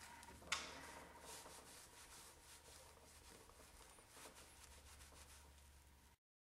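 Faint rubbing of a microfiber towel wiping across a car's painted trunk lid, with a soft click about half a second in.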